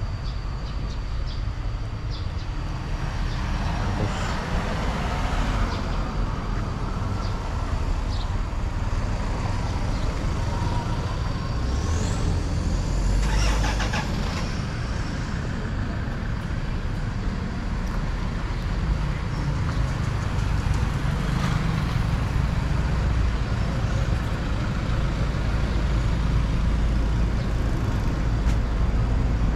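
Street traffic going by, with a steady low rumble throughout and one vehicle passing louder about thirteen seconds in.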